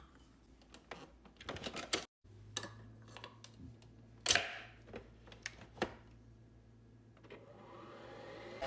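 Nespresso Vertuo capsule machine being loaded: clicks and knocks as a glass mug is set on the drip tray, the domed lid swung open with a loud whoosh-like clunk about four seconds in, and the lid pressed shut. Near the end a motor whine starts to rise as the machine begins its brew cycle.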